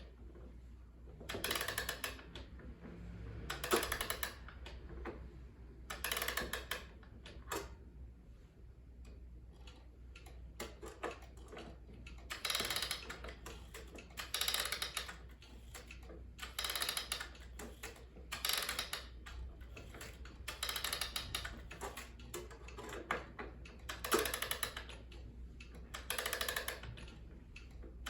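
Wind-up clock being wound with its key: a burst of rapid clicking with each turn of the key, repeating about every two seconds with short pauses between turns.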